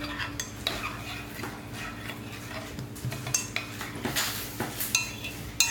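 A spoon stirring and scraping in a bowl of slime mixture, with irregular clinks and taps against the bowl.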